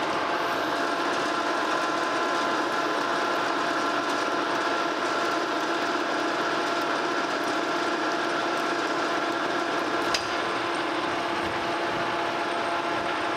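Metal lathe running slowly in its threading setup: a steady mechanical whir of the gear train with several held tones, while a single-point tool cuts an 11-threads-per-inch thread on a metal stud. One sharp click about ten seconds in.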